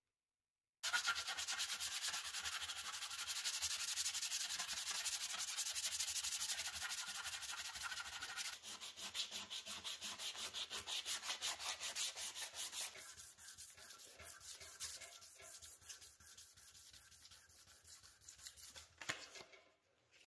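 Sandpaper (P150 grit) rubbed by hand in rapid back-and-forth strokes over a flat brass plate from a 1918 Siemens-Schuckert toaster. The scratching starts about a second in, grows quieter partway through, and stops just before the end.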